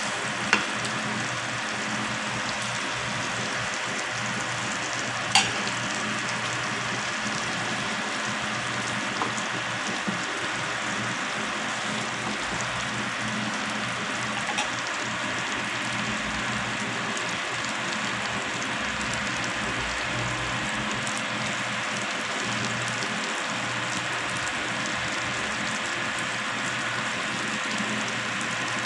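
Salmon steaks frying in melted butter in a non-stick pan, a steady sizzle, with their second side now cooking after being turned. Sharp clicks stand out about half a second in and again about five seconds in.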